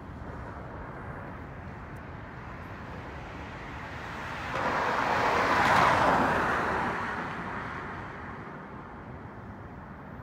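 A road vehicle passes close by, a rush of noise that rises about four and a half seconds in, peaks around six seconds and fades by eight. Underneath is a steady rumble of city traffic and an electric commuter train running along a viaduct.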